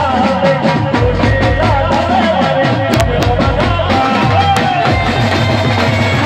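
Live Indian folk music played loud through a PA system: a steady drum beat under a wavering, ornamented melody line.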